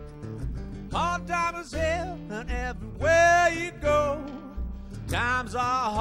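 Resonator guitar fingerpicked in a country-blues pattern over a steady low bass pulse, joined about a second in by a harmonica cupped against a microphone, wailing in long bent notes.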